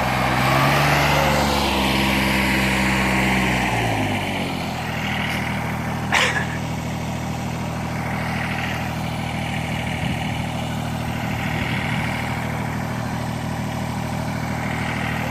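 An engine running, its pitch falling over the first four seconds or so and then settling to a steady idle. A single sharp click sounds about six seconds in.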